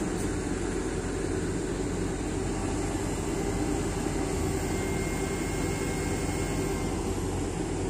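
Tracked excavator's diesel engine running steadily under load as its hydraulics lift a heavy generator set on a chain from the bucket.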